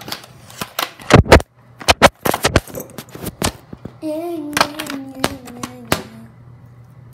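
Handling noise from a phone being picked up and moved about: a string of close knocks, taps and rubs, loudest about a second in. From about four seconds in, a girl's voice holds a sung or hummed note that slowly falls in pitch for about two seconds.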